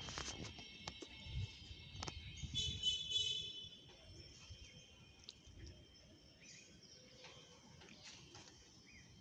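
Quiet outdoor background. Handling knocks and rustling fill the first few seconds, with a brief high chirping about three seconds in. A few faint bird chirps follow over a low steady hush.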